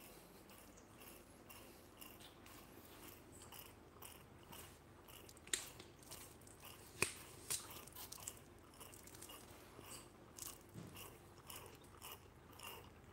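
Macaques drinking milk through straws from small cartons: faint, irregular sucking and slurping with crinkles of the carton, and a few sharper clicks between about five and a half and seven and a half seconds in.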